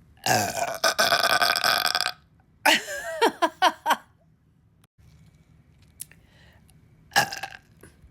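A woman's long, loud burp lasting about two seconds, followed by a quick string of about five shorter burps that drop in pitch, and one brief burp about seven seconds in.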